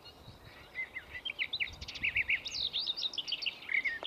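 Small birds chirping and singing in a quick run of short, sweeping high notes that starts about a second in, over faint outdoor background noise.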